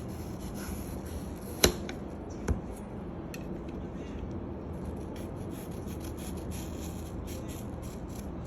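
A small kitchen knife cutting and scraping through a fresh apple in soft rubbing strokes, with two sharp knocks a little under a second apart, about a second and a half in.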